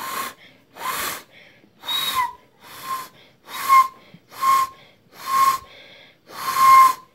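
Owl hoot imitated by blowing across a gap in cupped hands: a series of short, breathy, hooting whistles, about one a second, eight in all, each on a steady pitch.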